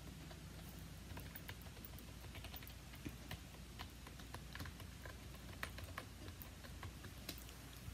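Faint, irregular clicking of keys as someone types on an Ajazz DKS100 quiet keyboard.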